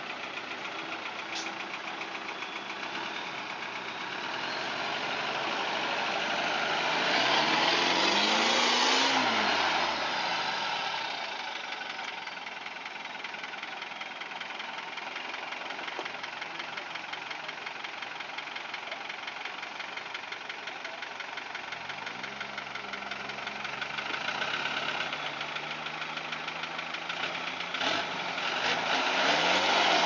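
Off-road 4x4's engine working under load as it crawls through a deep rut, revving up and back down about eight seconds in and rising again several times near the end. A single sharp knock comes a couple of seconds before the end.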